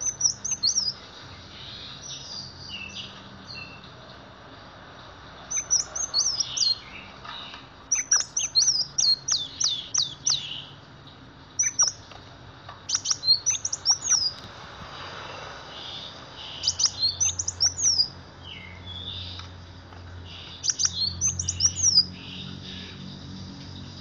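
Kolibri wulung sunbird singing: repeated phrases of rapid, high-pitched chirping notes, each phrase a second or two long with short pauses between.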